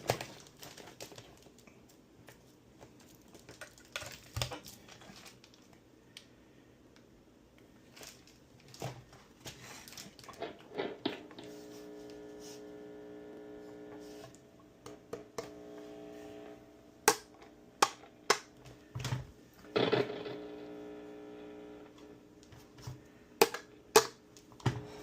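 Newly rewired Epiphone SG Junior electric guitar tested through a Positive Grid Spark amp: scattered clicks and pops, then a strummed note or chord rings out and sustains about halfway through, and a second one near the end.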